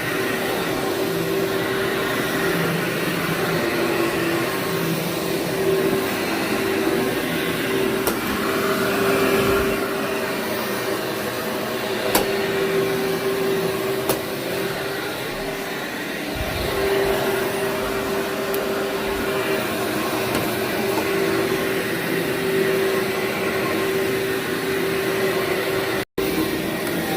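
Vacuum cleaner running steadily over dirty carpet, its motor holding a steady hum with a few sharp ticks of grit being picked up. The sound drops out for an instant near the end.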